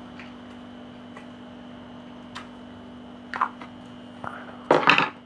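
Scattered light clicks and taps of small craft parts being handled, ending in a louder clatter near the end, over a steady low hum.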